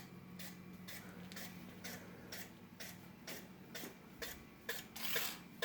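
A Progress Lighting Apollo ceiling fan running with a steady motor hum and a regular tick about twice a second: something on the fan is catching as it turns.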